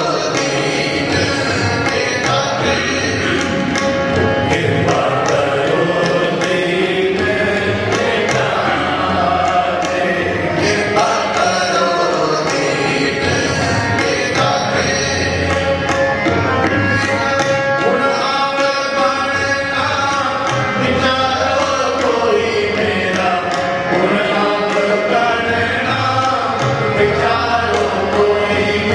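Sikh shabad kirtan: men's voices singing a Gurbani hymn over two harmoniums, with tabla keeping a steady beat.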